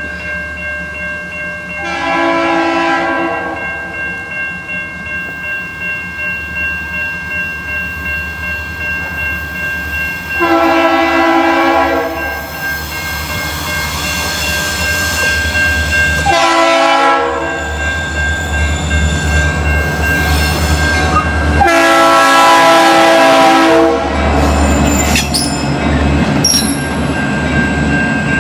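Freight train passing with a low rumble and rhythmic wheel clatter, broken by four blasts of multi-chime train air horns, the third one short: an exchange between a pickup truck's Horn Blasters air horns and the horn of a Norfolk Southern SD40-2 locomotive.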